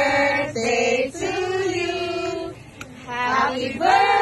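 Singing by several voices, long held notes that step and slide from one pitch to the next.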